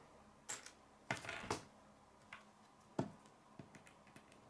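Plastic K'nex pieces clicking and knocking against a wooden tabletop as they are picked from a pile and fitted together: a scattered handful of short, sharp clicks, the loudest about a second in and again about three seconds in.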